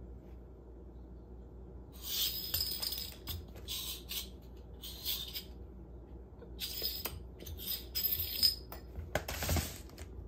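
A bottle cap clattering and skittering across a tile floor as a cat bats it with its paw, in about six short bouts starting about two seconds in, with a brief ringing on each hit.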